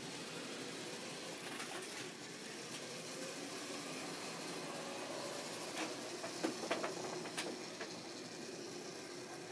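Model railway train running on the track: a steady whirr of motor and wheels, with a few sharp clicks about six to seven and a half seconds in.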